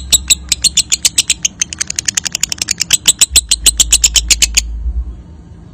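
Lovebird 'ngekek': a long, rapid chattering run of sharp, high chirps, about ten a second, that stops abruptly about a second before the end.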